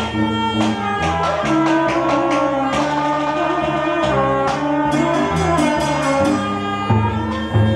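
Instrumental funeral music: a wind-instrument melody of held, shifting notes over regular drum strikes.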